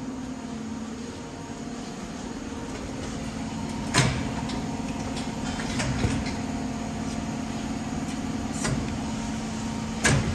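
A steady low hum with a few sharp knocks or clanks, the loudest about four seconds in and just before the end.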